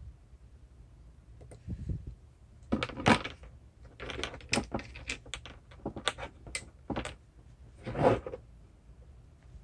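Irregular clicks and knocks of small hard objects, about a dozen over several seconds, the loudest about three seconds in and a longer knock about eight seconds in.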